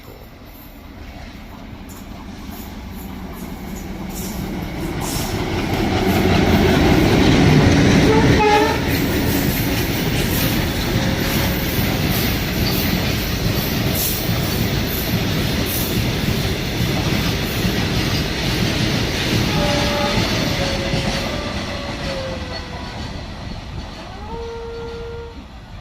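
A train passing at speed: the rumble of wheels on the rails builds to a peak about a third of the way in, holds, then fades away. Short horn tones sound briefly, with a steady horn blast of about a second near the end.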